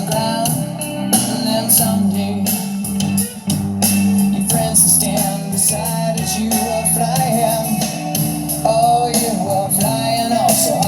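Rock song with electric guitar and male singing, played loud through a Harley-Davidson Electra Glide's fairing and saddlebag speakers: Hertz mid-ranges and tweeters and Rockford Fosgate 6x9s.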